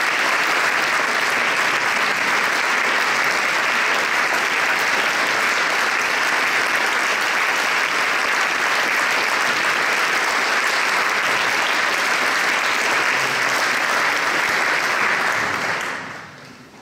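Audience applauding steadily in a hall, greeting the conductor as he walks on; the clapping dies away quickly near the end.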